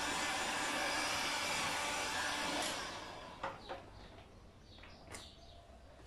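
Black & Decker heat gun blowing steadily as it shrinks plastic film onto a wooden board, then switched off and spinning down about two and a half seconds in. A few light knocks of handling follow.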